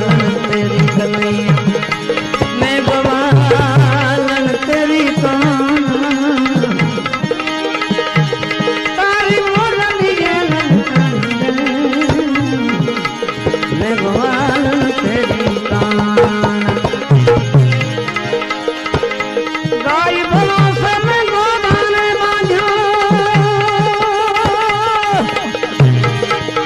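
Tabla playing steadily under a wavering, ornamented melody line: the instrumental accompaniment of a devotional bhajan.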